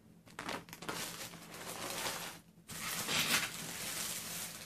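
Rustling and handling noise as a necklace on its cardboard display card is put aside and the next one is picked up. The noise comes in two stretches, with a short break about halfway.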